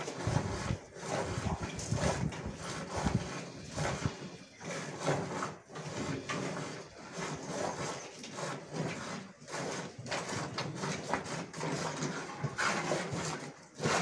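A cow being milked by hand: jets of milk squirting from the teats into a white plastic bucket that already holds frothy milk. Each squeeze makes a short swish, in a steady rhythm of about two a second.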